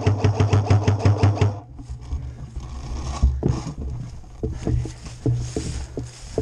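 Airsoft rifle firing a rapid full-auto burst of about a dozen shots a second, which stops about a second and a half in. Footsteps and rustling through long grass follow, with scattered knocks.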